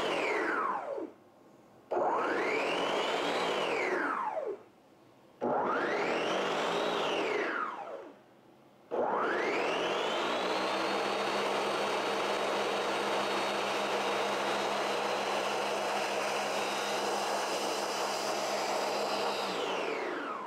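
Ninja Foodi Power Blender motor blending thick hummus in pulses. It winds down about a second in, spins up and down twice more, then runs steadily at full speed for about ten seconds and winds down near the end.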